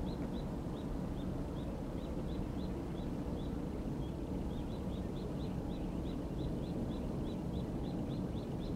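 Steady low rumble of a distant freight train's empty cars rolling past, with short high chirps repeating about three times a second.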